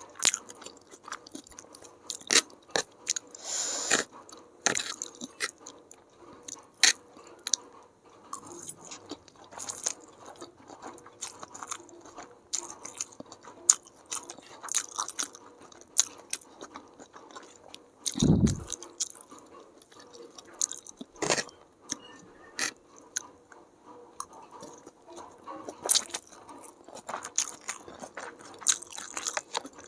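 Close-miked chewing of stir-fried chow mein noodles with vegetables, with many short wet clicks and crunches, and a fork working through the noodles on the tray. A single low thump about 18 seconds in.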